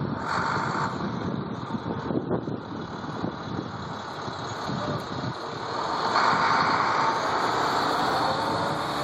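Yellow school buses and a passing SUV driving on a snowy road: engine and tyre noise, with a brief swell just after the start and a louder swell about six seconds in as a bus comes close.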